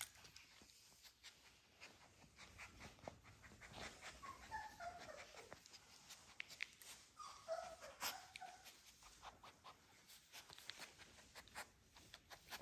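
Three-week-old American Bully puppies whining faintly: a drawn-out whine falling in pitch about four seconds in and another around seven seconds in, with scattered faint clicks between.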